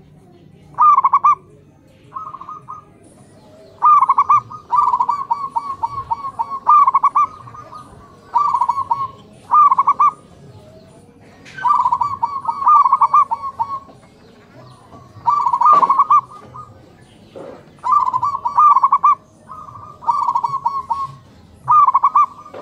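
Zebra doves (perkutut) cooing, several birds answering one another. Each phrase is a quick run of staccato coo notes, repeated every second or two, some loud and some fainter.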